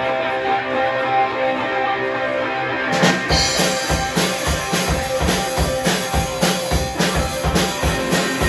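Live rock band playing a song intro: an electric guitar chord rings out, then about three seconds in the drum kit and bass come in with a steady beat.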